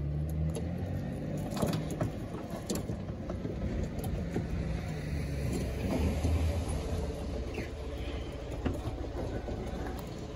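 A motor vehicle's engine running nearby as a steady low rumble, with a few faint clicks and scrapes as an LED headlight bulb is turned in its headlight housing.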